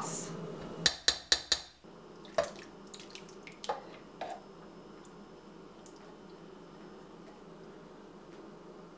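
A spatula knocking against a tin can four times in quick succession about a second in, then a few soft wet plops as tomato paste and canned diced tomatoes drop into a slow cooker crock. Quiet room tone for the rest.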